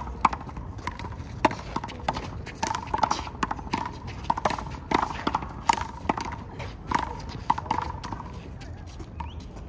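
A handball rally: a rubber handball smacked by hands and bouncing off the wall and the court, giving sharp smacks at irregular intervals, one or two a second.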